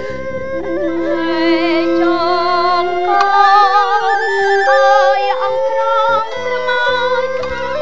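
A woman singing a slow, ornamented melody with a wavering vibrato over instrumental accompaniment; a low repeated beat comes in about six seconds in.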